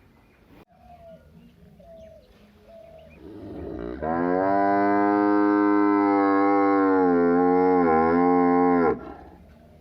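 A bovine mooing: one long, loud moo that swells in about three seconds in and holds for about five seconds, its pitch steady, with a brief dip just before it stops.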